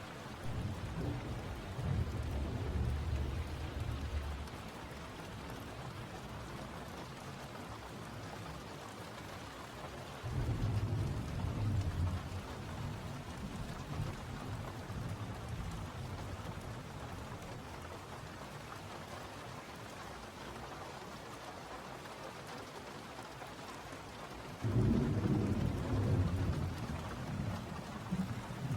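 Steady rain with rolls of thunder: three low rumbles swell up and fade, about a second in, about ten seconds in, and the loudest near the end.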